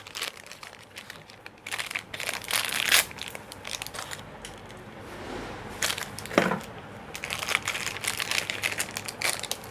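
Plastic packet crinkling and rustling in irregular bursts as a replacement mechanical seal for a jet pump is pulled out of its packaging, with one brief squeaky note a little past the middle.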